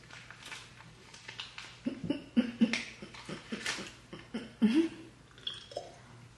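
A person tasting a fizzy drink from a can: quick wet mouth clicks and lip smacks, with a few short low hums about two to five seconds in.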